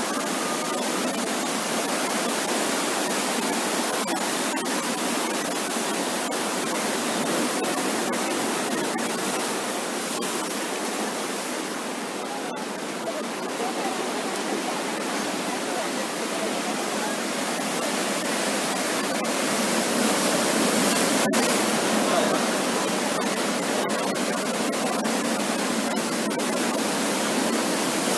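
Sea surf washing onto a sandy beach: a steady rush of breaking waves that swells a little past the middle.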